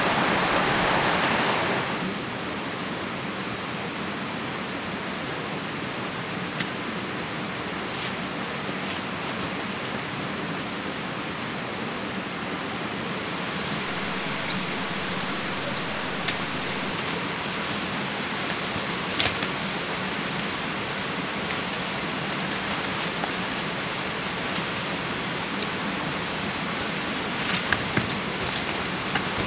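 Stream water rushing steadily, louder for about the first two seconds and then settling lower. Scattered faint clicks and a few short high chirps sound over it.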